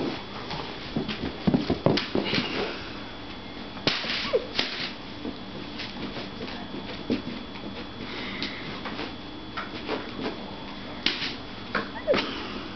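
Brittany puppy nosing and sniffing about on carpet among loose papers, with scattered light knocks and scrapes and a short squeak about four seconds in.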